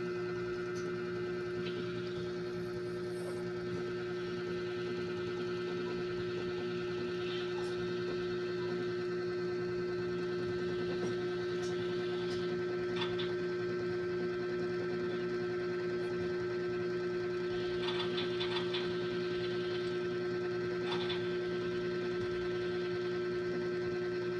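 Steady machine hum at one fixed pitch, such as a fan or appliance running, with a few faint short rustles in the second half.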